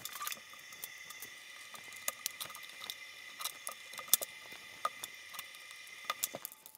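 Irregular small clicks and taps of plastic parts as the opened Bose HomeSpeaker 300 housing is handled and its top assembly worked loose, with one sharper click about four seconds in. A faint steady high whine sits underneath.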